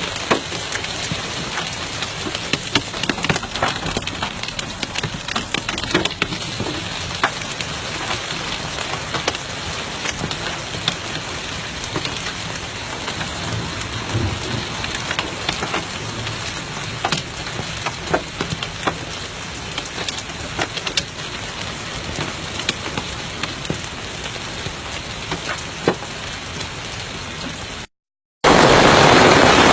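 Heavy rain falling, with many sharp ticks of impacts on a hard surface. Near the end the sound cuts out briefly, then a louder, more even rush of rain follows.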